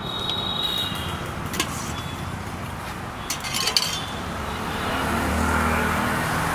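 Steady road traffic, with a vehicle engine swelling near the end, and a few sharp clinks of a steel ladle against steel pots and plates.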